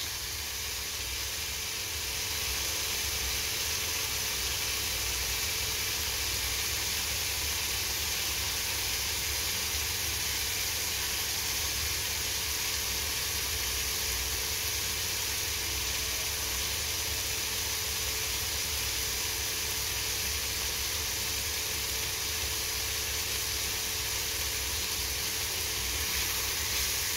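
Sliced bitter gourd with onion and tomato sizzling steadily in an uncovered frying pan: an even, unbroken hiss.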